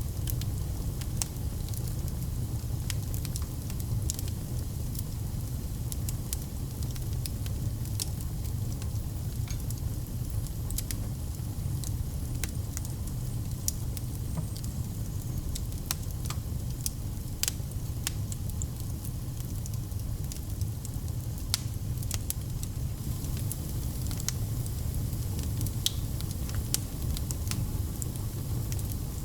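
Wood fire burning in a fireplace: a steady low rumble of flames with frequent sharp, irregular crackles and pops.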